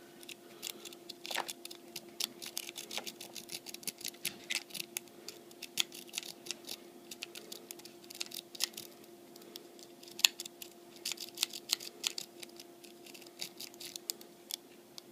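Lock pick raking the pins of a cheap Master Lock padlock: irregular flurries of light metallic clicks and scrapes as the pins are bounced, in bursts with short pauses.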